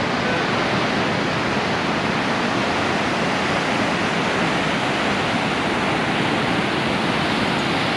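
Ocean surf breaking steadily on the beach: an even, unbroken rushing hiss.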